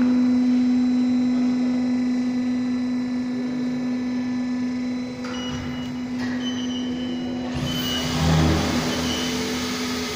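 Steady machine hum with one clear tone that fades out about halfway through. About three quarters of the way in, a louder rushing noise takes over.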